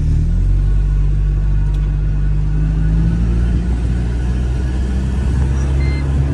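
Mercedes SLK 200 being driven with the roof down: a steady low engine and road drone with rushing air, heard from the open cabin.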